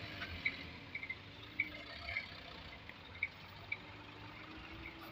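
Hino dump truck's diesel engine running faintly and steadily at low speed, with short high ticks scattered over it.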